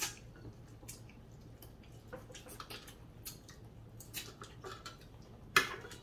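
Mouth sounds of people eating meat with their fingers: wet lip smacks, sucking and chewing clicks, scattered and irregular, with one louder click near the end.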